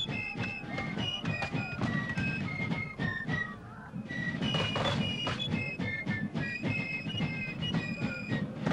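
A flute playing a quick melody of short high notes, with a brief pause about three and a half seconds in; a low rumble runs beneath it.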